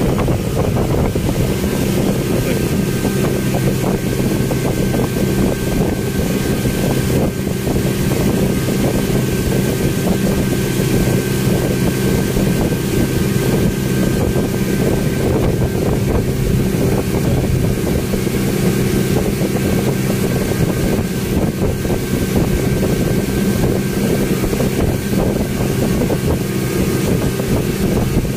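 Speedboat engine running steadily under way, a constant drone heard from inside the covered passenger cabin, with wind rushing past.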